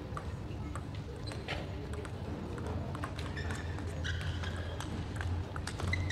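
Table tennis ball clicking sharply against the table and rackets, single ticks at irregular intervals as a point is served and rallied.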